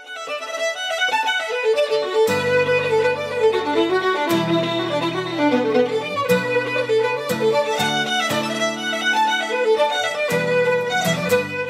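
Opening music: a fiddle playing a lively melody, joined about two seconds in by low sustained accompaniment notes.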